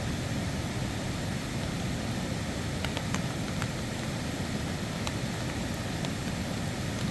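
Steady rushing of water in a monsoon rain, a full, even wash with a few faint, sharp drip-like ticks scattered through it.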